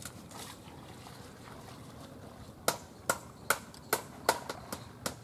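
Small hammer striking a bamboo railing: sharp, evenly spaced blows about two and a half a second, starting about two and a half seconds in, over a low outdoor background.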